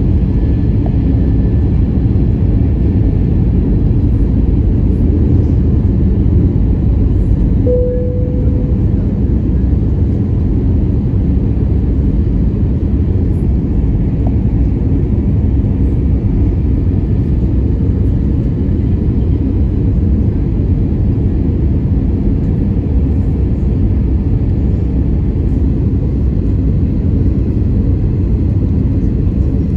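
Steady low roar of an Airbus A320's CFM56 turbofan engines and rushing air, heard inside the cabin during the approach descent. A short steady tone sounds briefly about eight seconds in.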